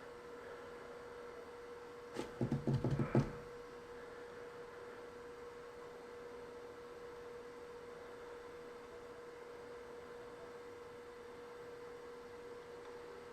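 A steady, faint, high hum, with a short burst of clicking and rattling about two to three seconds in: small electronic parts being rummaged through in a parts box while searching for a capacitor.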